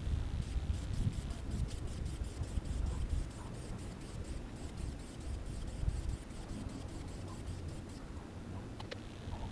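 Light, rhythmic scratching strokes, about five a second, over a low rumble; the strokes stop about eight seconds in.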